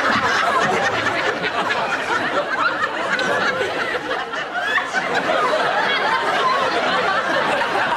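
A studio audience laughing, loud and sustained: many voices together.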